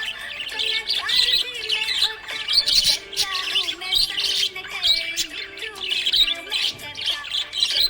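Budgerigar chirping and warbling in quick, busy runs of chirps throughout, with some steady tones of background music underneath.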